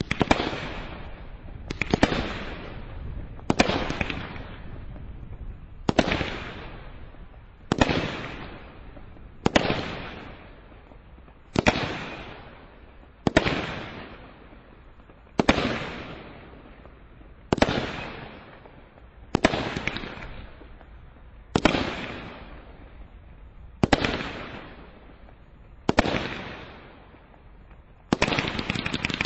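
A 30-shot Cat 3 combination roman candle barrage (Brothers Pyrotechnics Brocade Legend) firing one shot about every two seconds, each a sharp bang trailing off into a fading crackle. About a second before the end the firing turns into a dense, louder, continuous crackle.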